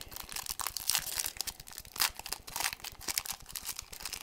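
Trading card pack wrapper crinkling and tearing as the pack is opened by hand: a dense run of sharp crackles.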